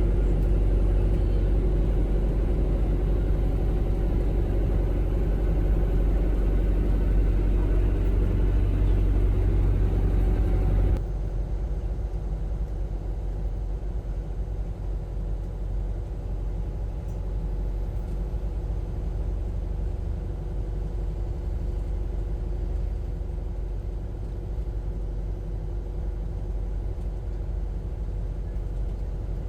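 Steady low vehicle rumble with a constant hum. It cuts abruptly to a quieter but similar rumble about eleven seconds in.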